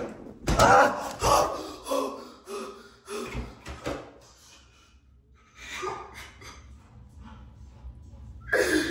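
A man gasping and breathing hard in fright, in short bursts with a pause midway, with a low thump about half a second in.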